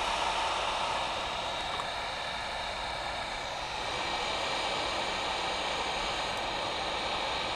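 Hot air rework station blowing a steady hiss of hot air. It is reflowing the solder under the HT8696 amplifier chip's thermal pad.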